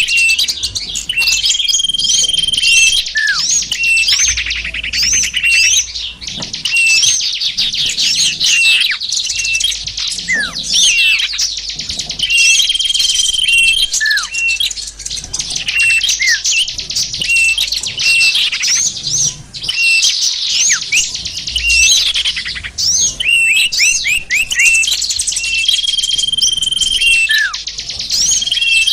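Bird-lure recording: a dense chorus of small songbirds chirping and twittering in quick, high calls. A held high whistle lasting about a second recurs three times, and the whole pattern repeats as a loop about every twelve seconds.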